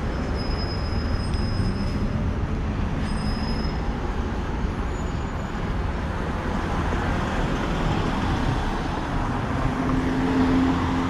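Steady road traffic noise, an even rumble with no single vehicle standing out, and a brief low hum near the end.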